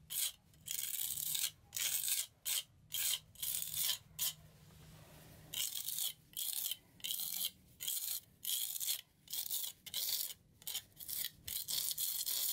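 Steel hand trowel scraping over rough concrete while spreading and feathering ready-mix concrete patch: quick repeated rasping strokes, with a break of over a second in the middle.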